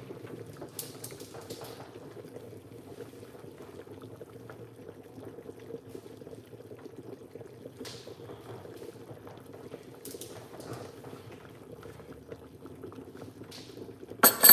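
Soup bubbling and crackling steadily at a gentle simmer inside a covered aluminium pot. Near the end the metal lid clanks sharply once as it is taken hold of.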